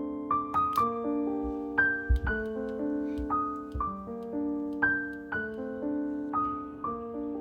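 Soft solo piano background music, slow struck notes ringing out one after another in a gentle flowing pattern.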